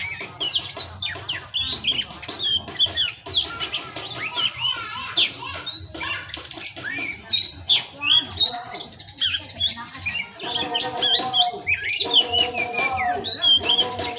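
Oriental magpie-robin (kacer) singing hard: a fast, varied song of rapid chirps, whistles and rising and falling notes. From about ten seconds in, a lower, steadier layered sound joins it.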